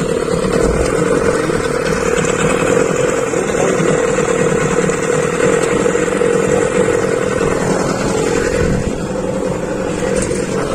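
Small outboard motor running steadily at cruising speed, pushing a river ferry boat along.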